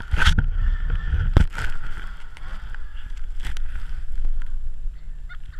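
Snowmobile engine running steadily, with wind noise on the microphone and several knocks from the camera being handled, the loudest about a second and a half in.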